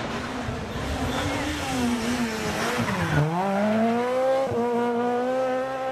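Rally car engine: its note falls to a low about three seconds in, then rises and holds as the car accelerates hard past out of the bend.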